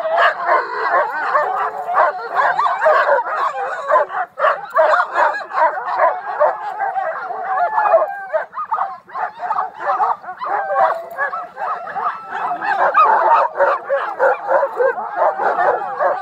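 A team of harnessed sled dogs, huskies and malamutes, barking and whining all at once, many voices overlapping without a break. This is the excited clamour of a sled team hooked to the gangline and waiting to run.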